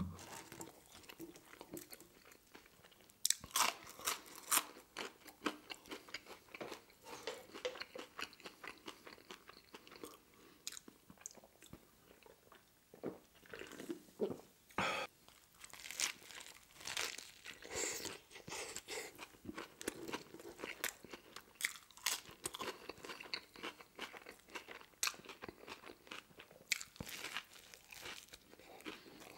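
Close-up mouth sounds of eating: crunching and wet, smacking chewing of French fries and a cold-cut deli sandwich with lettuce, pickles and potato sticks. Partway through there is a drink from a soda can.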